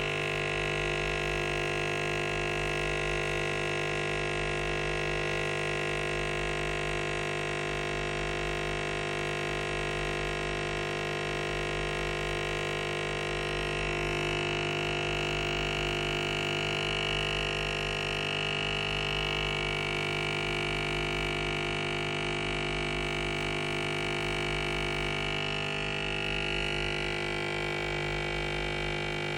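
Breville Nespresso coffee machine brewing a long cup: a steady, many-toned mechanical hum that runs without break, its higher tones shifting slightly about halfway through and again near the end.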